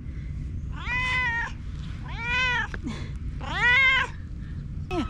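A domestic cat meowing three times in greeting, each call about half a second long, rising and then falling in pitch, the third the loudest.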